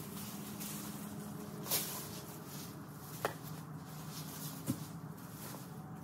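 Cut leafy branches and dry brush rustling as they are handled and piled, with three sharp snaps or clicks spread through.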